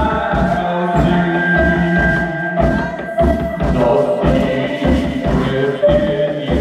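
Live band music: long held, droning tones over a steady bass-drum beat of roughly one thump every 0.8 seconds.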